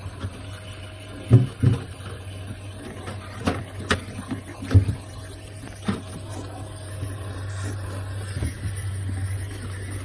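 Cutting pliers clicking and snipping on copper refrigerant tubing, in a handful of sharp, separate clicks over a steady low hum.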